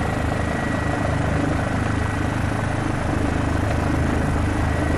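Police helicopter's engine and rotor running with a steady drone and a thin constant whine.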